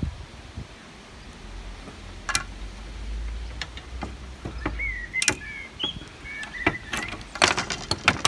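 Metal hand tools clicking and clinking on a chrome antenna joint as an adjustable spanner and mole grips tighten it, with a quick run of clinks near the end as the tools are released.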